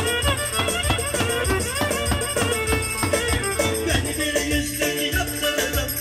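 Live Turkish folk dance music: a davul bass drum beats a steady rhythm under an amplified melody line.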